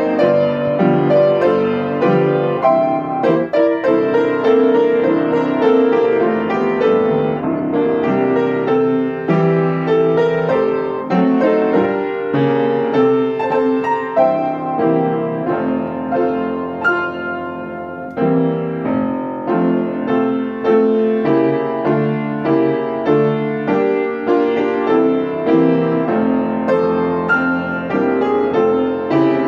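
Piano playing a hymn tune in full chords with the melody on top, at a steady, moderate pace.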